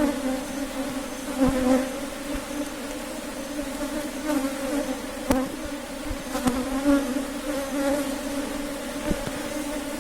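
Honey bees buzzing in a dense, steady drone around an opened hive during a frame inspection, with a few light knocks scattered through it.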